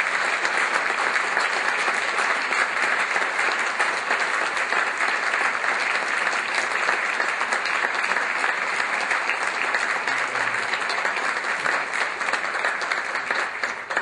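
Audience applauding: a steady, dense clapping of many hands that begins to die away at the very end.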